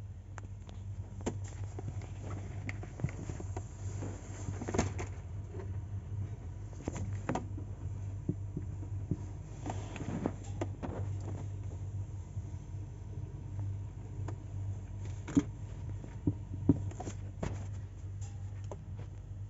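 Steady low electrical hum at twice mains frequency from running mains-powered equipment, with scattered small clicks and knocks throughout, a few sharper ones in the second half.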